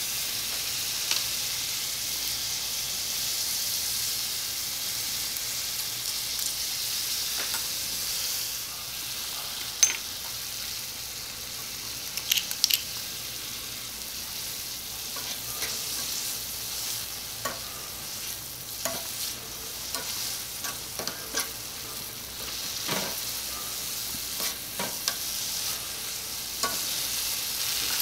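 Beef, pepper and carrot strips frying in a miniature copper wok: a steady sizzle that drops a little about a third of the way in. Scattered clicks and taps of a small metal spoon on the pan come more often in the second half.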